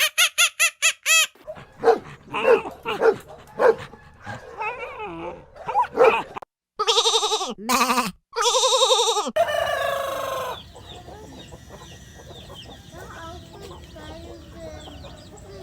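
Chickens clucking and calling in quick pitched notes, with a rooster crowing loudly about halfway through. In the last third this gives way to a quieter background of many faint chirps.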